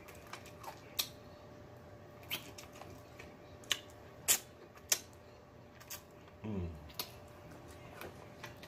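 Mouth sounds of eating a fried chicken leg: wet lip smacks and clicks at irregular times as the meat is sucked off the bone. About six and a half seconds in there is a short, low 'mmm' of enjoyment that falls in pitch.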